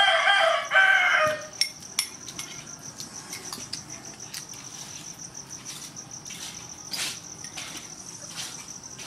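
A rooster crows once for about a second and a half at the start, ending with a short downward drop. Under it a steady high insect trill runs on, with a few faint clicks like crockery.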